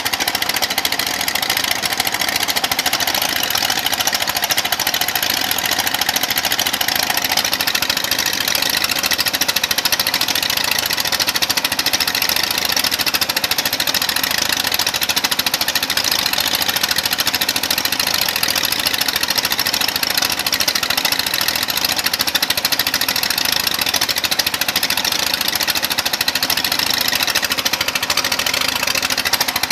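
Engine on a floating river mining raft running steadily under load, driving the raft's suction pump.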